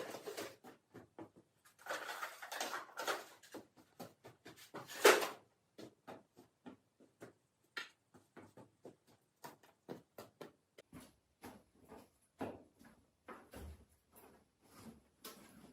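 Scattered small knocks and light clatter of camp gear being handled. A busier run of clatter comes a couple of seconds in, with a sharper knock at about five seconds, then lighter irregular clicks.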